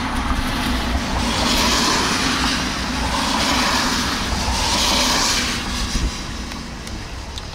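Car on the road heard from inside the cabin: a steady low rumble of road and engine noise. Three swells of hiss come about a second and a half apart, then ease off near the end.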